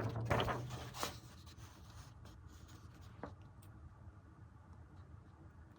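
Soft rubbing and scraping of paper or card being handled up close, busiest in the first second, with a light tap about a second in and another about three seconds in.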